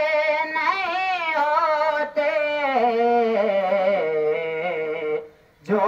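A boy singing a naat solo, drawing out the words in long melismatic notes with a wavering vibrato; the voice drops in pitch and holds a low note, then breaks off briefly for breath near the end.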